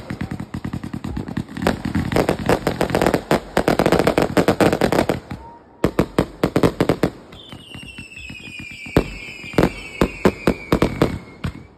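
Aerial fireworks going off: a rapid string of bangs and crackles, a brief pause about halfway, then more bangs. In the last few seconds several whistles fall in pitch, with a few more bangs among them.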